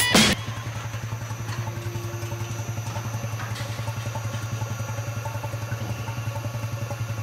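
Epoxy resin mixing plant's machinery running: a steady low hum with a fast, even pulse. Background music cuts off abruptly just after the start.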